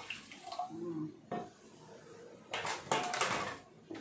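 Metal spoon clinking and scraping against a stainless steel bowl as coconut cream is stirred with hot water; a quick run of clinks comes about two and a half seconds in.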